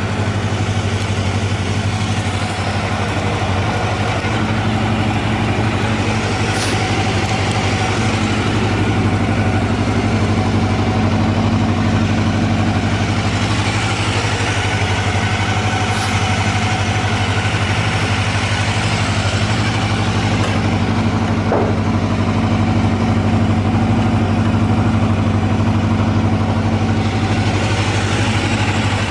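Honda CBR250R MC19's 250 cc inline-four engine idling steadily after a cold start, running evenly with no abnormal noises.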